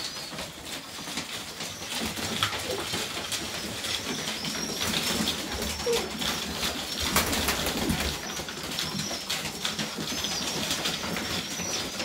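Serbian Highflyer pigeons in a loft: scattered cooing, wing flaps and scuffling about, with repeated short high chirps.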